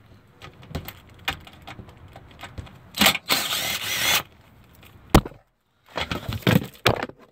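A cordless power tool runs for about a second, backing out a bolt that holds a plastic fender-well splash shield. Then comes a sharp knock and a few clattering knocks as the loosened plastic panel shifts and comes down.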